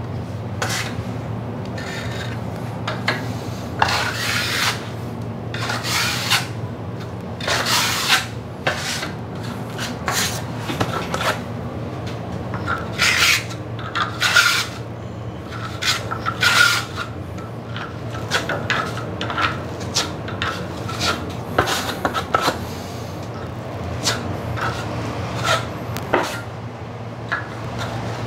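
A broad filling knife scraping and spreading wet filler across a plasterboard ceiling in repeated, irregular strokes while a coat of filler is laid over a repaired paper-tape joint. Some strokes carry a thin squeak from the blade.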